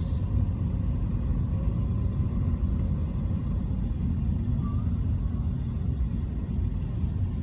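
Steady low rumble of engine and tyre noise inside a moving car.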